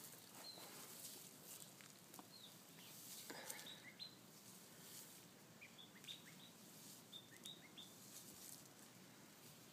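Quiet outdoor ambience with small birds giving scattered brief, high chirps, busiest in the second half. A few soft rustles or taps can be heard, one about three seconds in.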